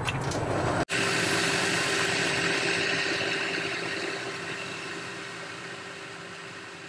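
Boxford lathe running while a boring tool cuts the bore of a metal collet holder, throwing off curls of swarf: a steady machine hum with a hissing cutting noise. The sound starts abruptly about a second in and eases off slowly toward the end.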